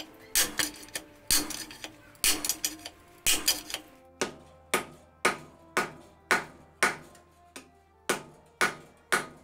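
Hammer blows on a glowing damascus knife blank as its tang is forged out. At first they come in quick clusters of three or four strikes about once a second; from about four seconds in they are single ringing blows on the anvil, roughly two a second, over a low steady hum.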